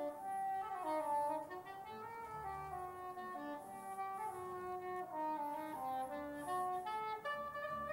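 Klezmer music: a wind instrument plays a melody moving note by note over a low accompaniment.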